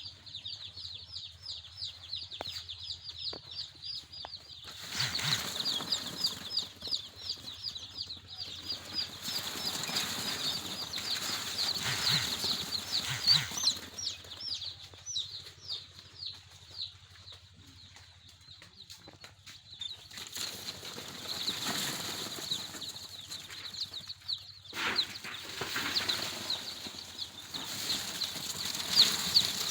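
A crowd of young chicks peeping continuously in quick, high, downward-sliding chirps. Stretches of rustling noise come and go over them.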